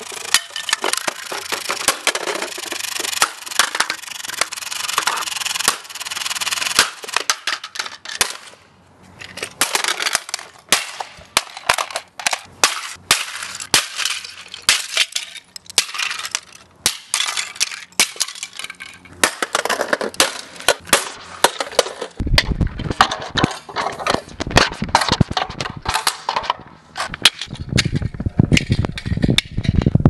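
Hammer repeatedly smashing hard plastic toy kitchen appliances on pavement: a long run of sharp cracks, bangs and clattering plastic fragments. A low rumble joins the blows for the last several seconds.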